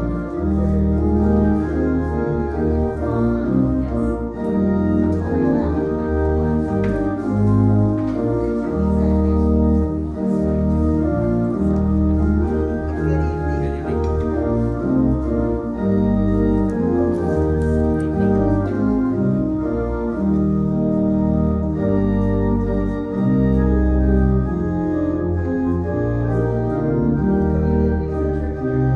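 Organ music: slow, sustained chords over a deep bass line, the notes changing every second or so.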